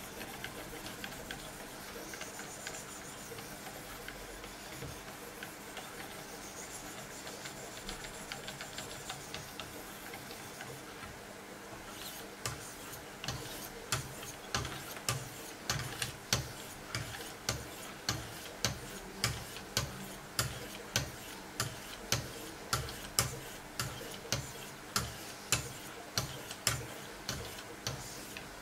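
2200-grit diamond stones of a Wicked Edge guided sharpener stroked alternately along both sides of a Benchmade 484's M390 blade. Soft scraping at first, then from about twelve seconds in a steady rhythm of sharp ticks, roughly one and a half a second, one with each stroke.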